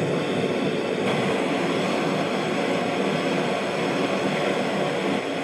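Gas torch burning steadily with a rushing hiss while its flame heats the neck and tang of a steel scythe blade to red heat for bending.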